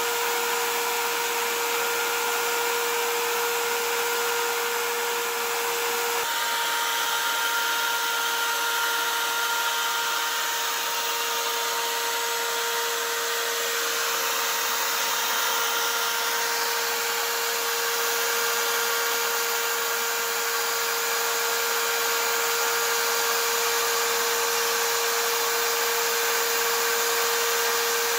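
Electric power tool running steadily at high speed, spinning a sanding drum and then steel wool against a coin ring, with a constant high motor whine; the pitch shifts slightly about six seconds in.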